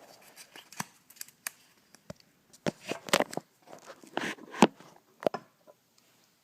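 Handling noises: a scattered run of clicks, knocks and rustles as things are moved about, the sharpest knock a little past the middle, then quiet near the end.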